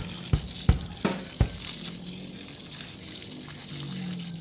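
Water from a garden hose running and splashing onto the soil of a freshly repotted bonsai, a steady hiss. A drum beat of about three thumps a second plays over the first second and a half, then stops.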